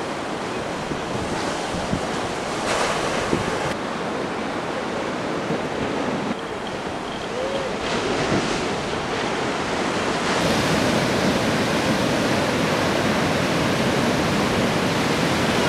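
Steady rush of sea surf with wind on the microphone, growing louder and brighter about ten seconds in.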